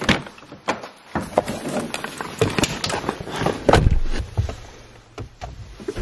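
Jeep Wrangler door being opened by its outside handle with a sharp latch click, then scattered knocks and rustling while someone climbs into the seat. The door shuts with a loud thump about four seconds in.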